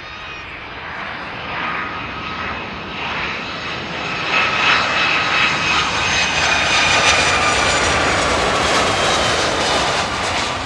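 Jet airliner on final approach passing low overhead: the engine roar swells over several seconds to a peak about two-thirds of the way through, with high whining tones that slide slightly lower in pitch as it passes, then begins to ease.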